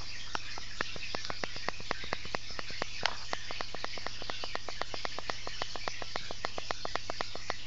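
Running water from aquarium equipment with a steady hum, over which comes a long run of fast, evenly spaced clicks, about five a second, one of them louder about three seconds in.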